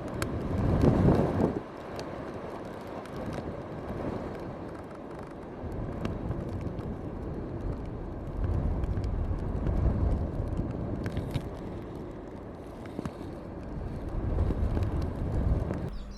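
Wind buffeting the microphone in gusts, a rumbling noise that swells and eases several times, with a few faint clicks from handling a handheld camera.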